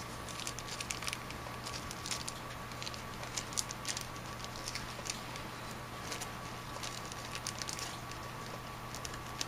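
Faint scattered light clicks and ticks of small brass carburetor parts, a new Viton-tip needle and its seat, being handled and set down, over a steady faint electrical hum.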